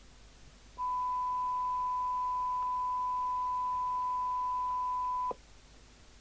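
A steady 1 kHz test tone comes from the CB radio's receiver, starting just under a second in and lasting about four and a half seconds. It cuts off suddenly with a click: the squelch opening and then shutting again as the squelch preset is turned.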